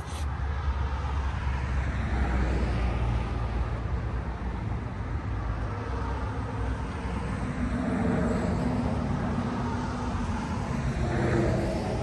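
Road traffic going by: a steady low rumble with swells of passing vehicles and tyre noise, one a few seconds in and another, with a bit of engine note, towards the end.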